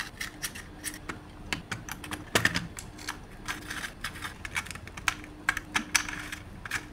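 Irregular small clicks and taps of hard plastic alarm-clock casing parts being handled and fitted together.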